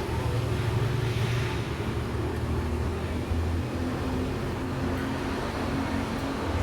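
Steady low drone of a vehicle engine running, with road and traffic noise over it.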